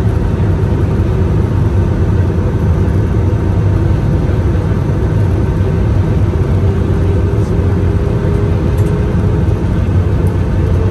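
Jet airliner in cruise heard from inside the cabin: a loud, steady low drone of the engines and rushing air, with a faint constant hum on top.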